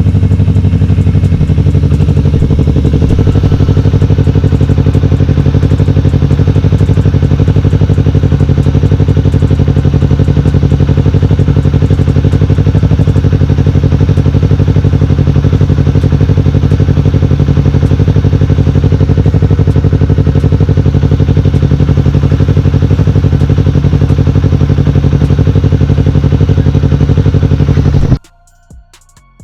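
Yamaha R3's 321 cc parallel-twin engine running steadily after a starter-motor repair; the sound cuts off suddenly near the end.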